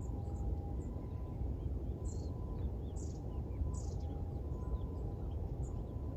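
Small birds chirping: short high chirps, a few louder ones from about two to four seconds in, over a steady low background rumble with a faint steady hum.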